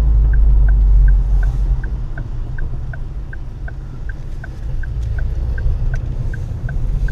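Low engine and road rumble inside a Ford Focus ST's cabin as it rolls slowly, easing off for a few seconds in the middle, with the turn-signal indicator ticking steadily about three times a second.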